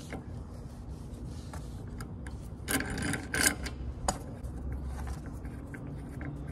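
Rusted, rounded-off bolt grating metal on metal as an extractor socket turns it out of an old wheel, with two short rasping bursts about three seconds in and a sharp click soon after.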